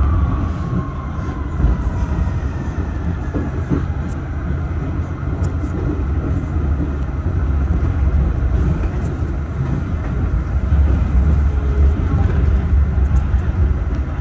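A 1989 Kawasaki R68A subway car in motion, heard from inside the car: a steady low rumble of wheels on the rails, with a whine that falls in pitch over the first second or two.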